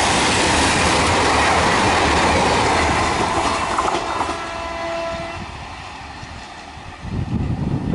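An express passenger train hauled by a WAP1 electric locomotive rushing past, its coaches clattering over the rail joints, then fading as it pulls away. A steady horn sounds for about a second and a half halfway through, and wind buffets the microphone near the end.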